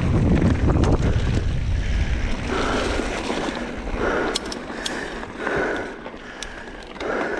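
Wind buffeting the camera microphone on a mountain bike ridden along a dirt trail, with scattered clicks and rattles from the bike. The wind rush is heaviest for the first two seconds or so, then eases as the bike slows.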